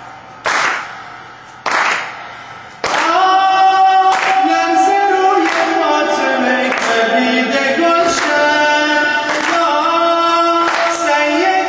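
A man sings a Persian devotional song into a microphone in an echoing hall, his voice coming in about three seconds in. Under it, sharp hand claps keep a steady beat about once a second.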